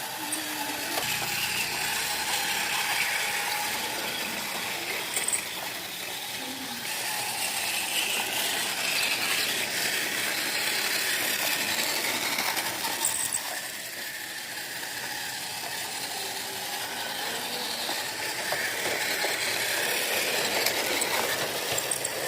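Battery-powered Plarail toy trains running on plastic track: a steady motor whir with dense, rapid clicking and rattling from the wheels and gears.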